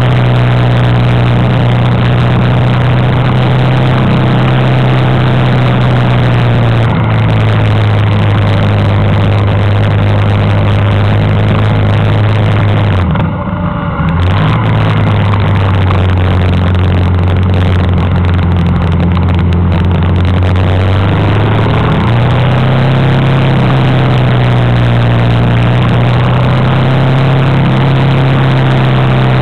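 Honda Africa Twin's V-twin engine running steadily under way. Its pitch drops briefly about halfway through as the bike slows for a hairpin, then climbs again as it pulls away.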